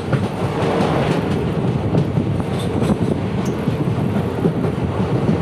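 Passenger train running at speed, heard from an open coach doorway: a steady, loud rumble of wheels on rails.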